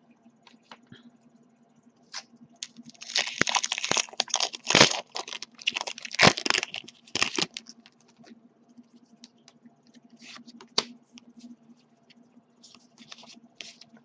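Foil booster-pack wrapper crinkling and tearing open for a few seconds of dense crackling. Later come a few lighter clicks and rustles of trading cards being handled.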